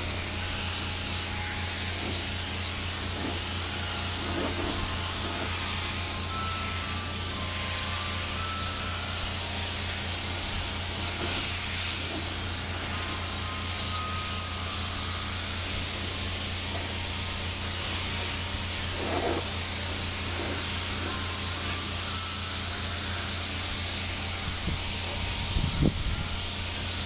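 Silver paint being sprayed onto motorcycle body parts: a steady spray hiss over a steady low hum.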